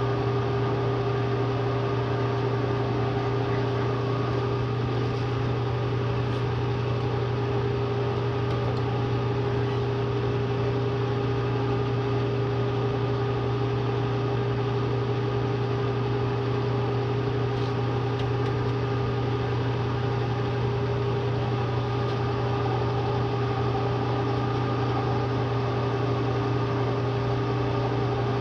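Bridgeport milling machine running with a steady electric motor hum, used to cut holes with a hole saw in a steel tube.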